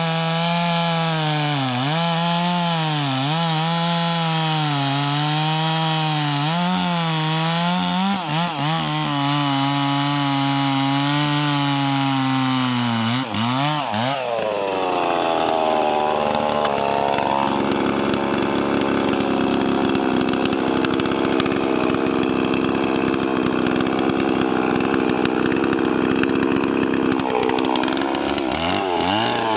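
Large two-stroke Stihl MS 440-pattern chainsaw, built from a Farmertech/Huztl kit, cutting through a big hardwood log. Its revs dip and recover over and over as the chain bites. About halfway through it is pulled down to a lower, steady labouring note under the load of the deep cut, and it revs back up near the end.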